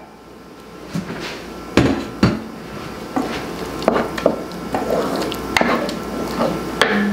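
A wooden spatula stirring thick tomato sauce in a nonstick pan, knocking and scraping against the pan's sides and bottom in irregular strokes.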